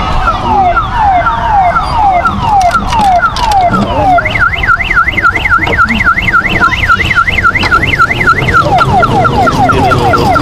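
Electronic siren sound effect from a children's electric kiddie-ride train: a falling wail repeating about twice a second, switching about four seconds in to a fast up-and-down warble, then near the end back to quicker falling wails.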